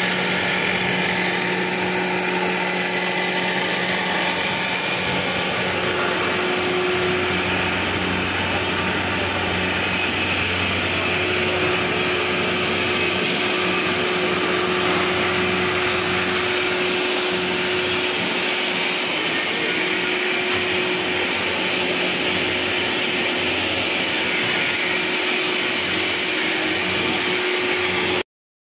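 Floating fish feed extruder running steadily while producing pellets: a constant machine noise with a steady low hum and tone from its electric motor and screw drive. It cuts off suddenly near the end.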